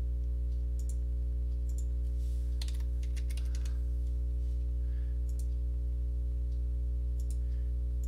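Scattered clicks of a computer mouse and keyboard, single and in short clusters, over a steady electrical hum that is the loudest thing heard.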